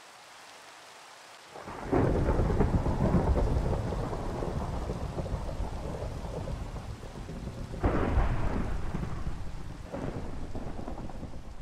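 Steady rain with rolling thunder: a loud crack about two seconds in that rumbles on and slowly dies away, a second crack about eight seconds in, and a weaker rumble near the end.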